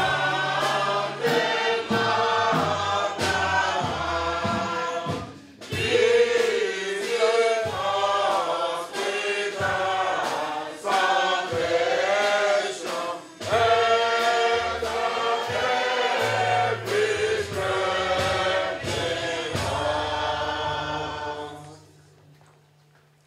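A church congregation singing a hymn together, with held low notes underneath, in phrases separated by short breaks. The singing dies away shortly before the end.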